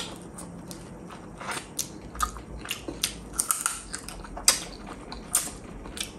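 A person biting and chewing chicken feet in spicy gravy, with irregular sharp crunches and clicks several times a second.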